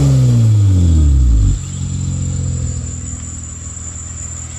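2005 Acura RL's 3.5-litre V6 coming down from a rev, its pitch falling, with a loud low drone that cuts off abruptly about a second and a half in, then settling to a steady idle. The owner is chasing a boom heard when the engine is accelerated.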